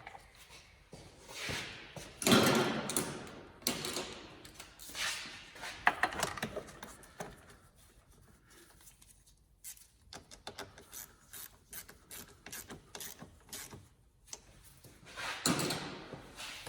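Hand tools scraping and rubbing against metal during work on a car battery terminal, in several rough swells, with a stretch of quick light clicks in the middle, like a ratchet being worked.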